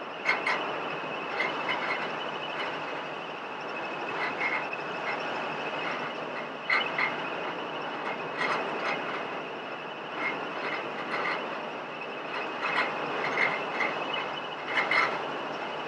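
Steady road and engine noise of a car heard from inside the cabin, with irregular clicks and rattles every second or so, under a faint steady high whine.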